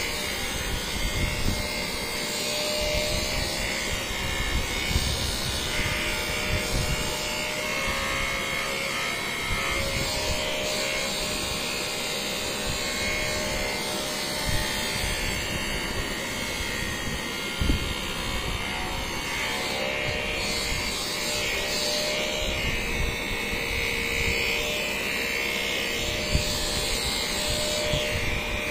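Handheld electric massager running steadily with a motor hum, its head pressed against a patient's back as part of post-COVID physiotherapy.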